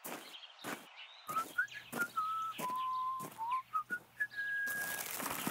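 Someone whistling a jaunty tune of short held notes, over evenly paced footsteps about every half-second. Near the end a hissing rustle comes in.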